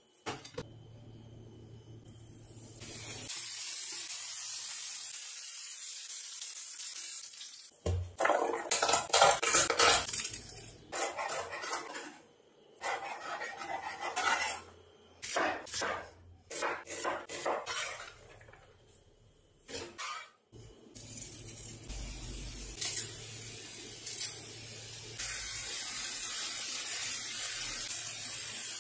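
Cooking in sequence. First something sizzles steadily in oil in a frying pan. Then a chef's knife chops garlic on a wooden cutting board in a long run of sharp knocks, and at the end sliced onions sizzle in the pan.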